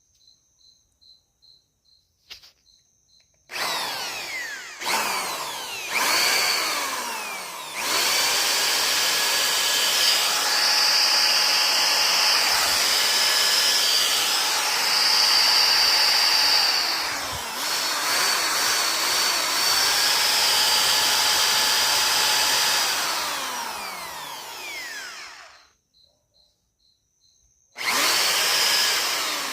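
Electric drill running off a 1000 W pure sine wave inverter. After two or three short bursts, it runs for about seventeen seconds, its motor whine rising and falling as the speed changes, then winds down and starts again near the end. Crickets chirp in the quiet gaps.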